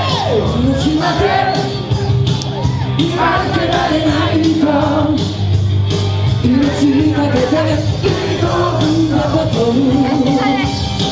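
Live rock-style anime song: male singers singing into microphones over loud rock music with a steady drum beat and bass, with audience shouts mixed in.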